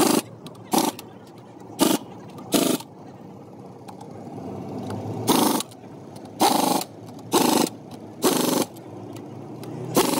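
Pneumatic impact wrench running in short bursts on a truck's wheel nuts: about nine loud rattling bursts, each under half a second, with short pauses between, over a steady low background hum.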